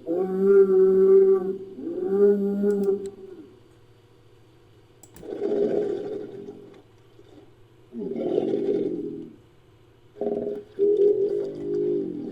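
Invented creature calls made from bison, buffalo and bull bellows: two long held pitched calls, then two rougher, noisier bellows, then a short call and a final held call. A steady low hum runs underneath.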